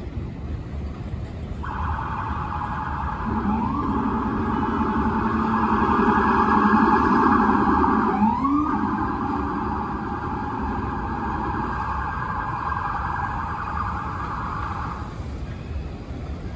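New York City subway train with a sustained electric whine at two pitches, stepping upward twice in pitch and swelling to its loudest about halfway before stopping shortly before the end.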